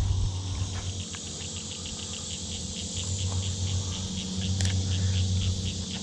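An insect, likely a cricket, chirps in a steady, even rhythm of about four short, high-pitched chirps a second over a low, steady rumble, with one sharp click about two-thirds of the way through.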